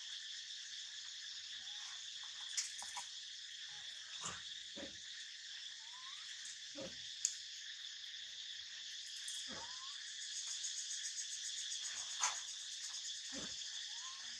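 Steady high-pitched drone of insects, swelling and pulsing a little past the middle, with a few short sliding calls and three brief sharp clicks on top.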